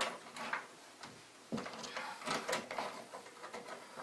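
Scattered light clicks and scrapes of electrical wires and a wall switch being pushed and stuffed back into a crowded wall electrical box.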